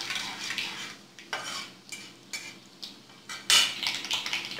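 Flat metal spatula stirring and scraping in a kadai as mustard seeds, urad dal and cumin fry in hot oil for a tempering, over a light sizzle. Irregular scrapes, with a louder one about three and a half seconds in.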